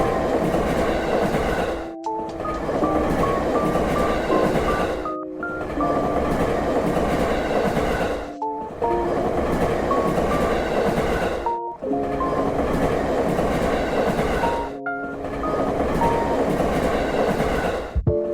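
Train running on rails, a steady rumble with short tones that step up and down in pitch. The sound cuts out briefly about every three seconds.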